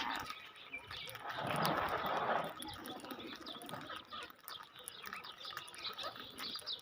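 Birds chirping, many short high chirps overlapping throughout, with a louder rushing noise lasting about a second, starting about a second and a half in.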